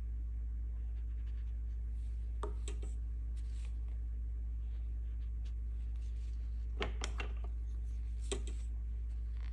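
A steady low hum, with a few light taps and scrapes of watercolor painting tools, such as a brush knocking against a palette or water cup: a couple about two and a half seconds in, and a small cluster in the last three seconds.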